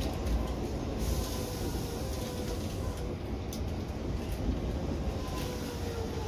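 Tobu Urban Park Line electric commuter train heard from the driver's cab: a steady rumble of wheels on rail with a faint motor whine that slowly falls in pitch as the train slows toward a station. A brief hiss comes and goes in the first half, and there is one sharp tick about three and a half seconds in.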